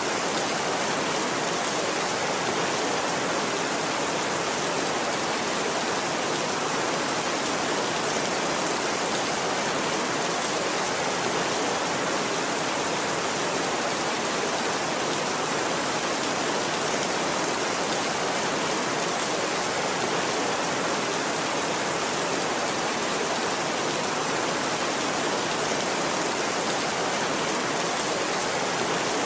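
Steady rainfall, an even unbroken hiss.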